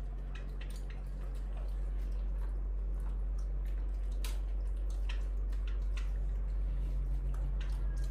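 Scattered small clicks and wet smacks of monkeys eating noodles with their hands from a steel bowl, over a steady low hum.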